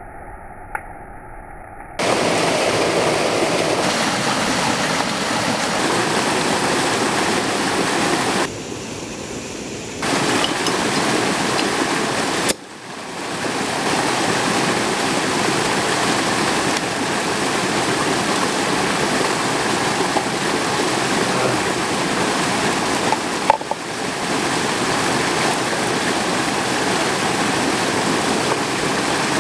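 Steady rush of a mountain stream. It comes in abruptly about two seconds in after a quieter opening, and dips briefly twice along the way.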